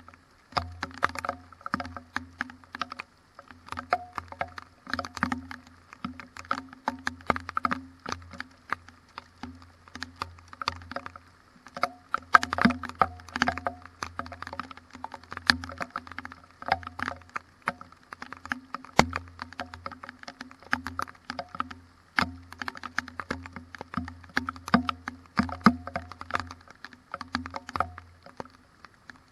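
Rain in a thunderstorm striking close to the microphone: a dense, irregular patter of sharp ticks and taps, over a steady low hum.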